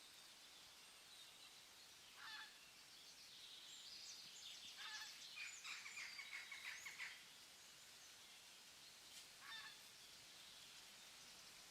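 Faint forest ambience with birds calling: a short call about two seconds in, a quick run of harsh repeated calls between about four and seven seconds, and another short call near the end, over a steady soft hiss.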